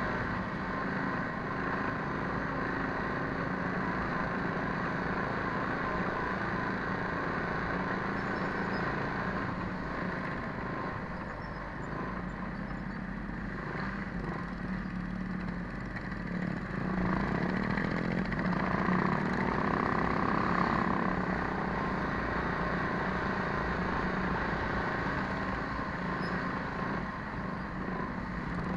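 Coleman minibike's small engine running under way on a dirt trail, its pitch sagging a little before halfway and rising again as it picks up speed.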